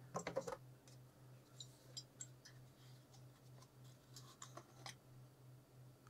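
Near silence: a few faint clicks and taps from the Xbox Series S motherboard and the part pressed onto its freshly pasted processor being handled, most of them in the first half-second and a few sparse ones after, over a faint low hum.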